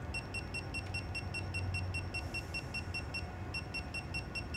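Digital torque wrench beeping at each press of its setting buttons as the torque value is dialled in: quick short high beeps, about five a second, in two runs with a pause of about a second between them.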